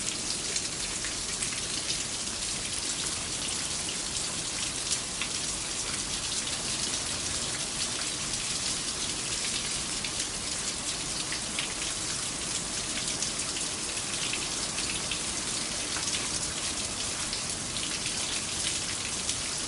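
Steady light rain falling, many small drops pattering on a surface with a continuous hiss.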